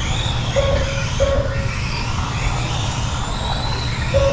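Kyosho Mini-Z electric RC trucks whining around the track, their pitch rising and falling as they speed up and slow down, over a steady low rumble. Three short beeps from the lap-timing system mark cars crossing the line, about half a second in, a second in, and near the end.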